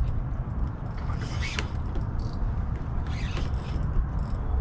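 Fishing reel and rod working under the pull of a hard-fighting fish. The reel gives irregular mechanical clicks and creaks, heaviest about a second in and again about three seconds in.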